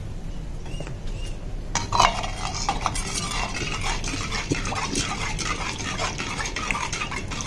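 A steel spoon stirring milk and water for salted kachi lassi in a clay pot, scraping and clinking against the pot's inside in repeated strokes that start about two seconds in.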